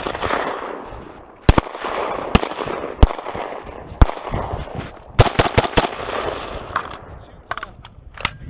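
Gunfire: a string of about ten single shots, roughly one a second and irregularly spaced, some in quick pairs, each followed by a short echo.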